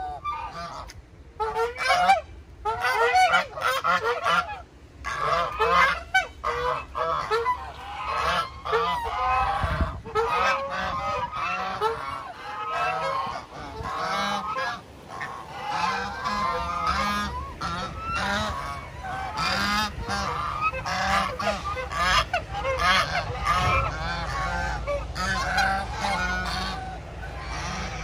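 A flock of birds calling, many loud calls overlapping one another without a break.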